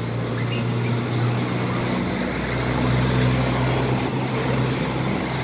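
Motor vehicle engine running with a steady low hum over road noise, swelling to its loudest about halfway through and easing off a little toward the end.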